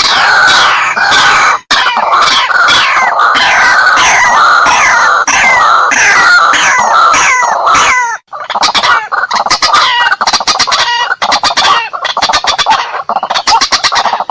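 White-breasted waterhen calling loudly: a fast run of repeated falling notes, several a second, that breaks off about eight seconds in and starts again as a quicker string of short, clipped notes.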